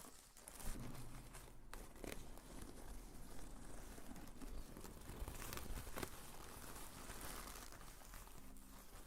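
Close-miked rustling and crinkling of objects being handled, with a few soft clicks.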